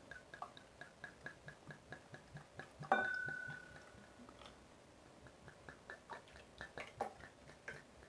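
Makgeolli being poured from a bottle into a glass and a ceramic cup, with faint gurgling clicks. About three seconds in, the bottle knocks the glass once and the glass rings, fading over a second or so. Faint fast ticking, about five a second, runs underneath.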